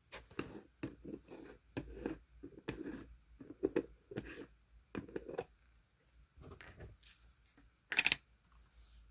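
Blue clear slime being squeezed and poked by hand: a run of short sticky squishes and clicks, about two a second, then quieter, with one louder sharp pop near the end.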